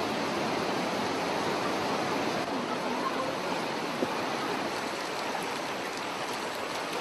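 Fast-flowing floodwater rushing and churning with a steady, unbroken noise.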